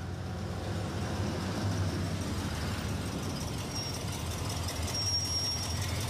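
Fire department box-body truck's engine running low and steady as it drives slowly across the yard towing a trailer, with a short high squeal about five seconds in as it pulls to a stop.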